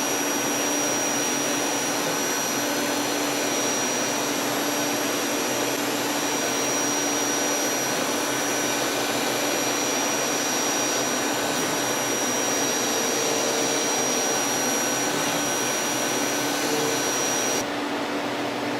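CNC lathe running: a steady hiss with several constant whining tones, one of them high-pitched. Near the end the high whine cuts off suddenly and the noise drops a little.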